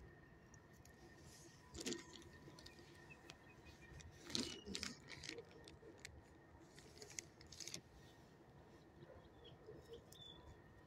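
Near silence, with a few faint, brief rustles and clicks: one about two seconds in and a short cluster about four seconds in.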